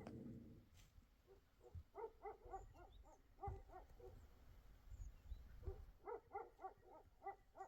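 Faint animal calls: two quick runs of short pitched notes, about five a second.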